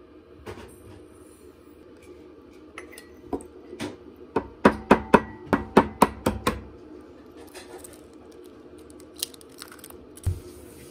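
Baking ingredients going into a glass mixing bowl: a faint pour of granulated sugar, then a quick run of about eight sharp clinks against the glass, about four a second, and near the end eggs cracked and dropped into the bowl with a soft plop.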